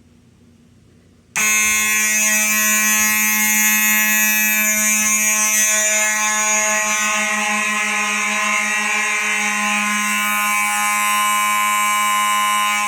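Faraday mechanical fire alarm horns sounding on continuous. A loud, steady horn tone with many overtones starts suddenly about a second in and holds unbroken.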